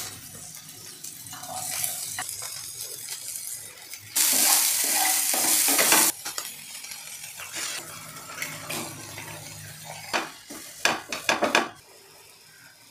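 Chopped onion and egg frying in hot oil in a non-stick frying pan while a spatula stirs. About four seconds in, a loud burst of sizzling lasts about two seconds, then it settles to a softer fry. Near the end come several sharp taps of a spoon or spatula against the pan.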